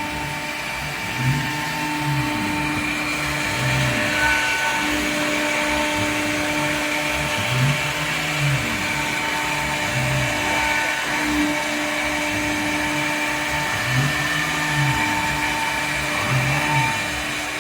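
CNC router running: a steady, high spindle whine, with a lower motor whine that rises and falls in pitch every second or two as the axes move.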